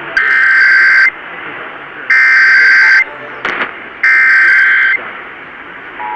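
Emergency Alert System data header received on AM broadcast radio: three one-second bursts of screeching digital data, about two seconds apart, over steady static hiss, with a brief crackle of static between the second and third bursts. Near the end the steady two-tone EAS attention signal begins.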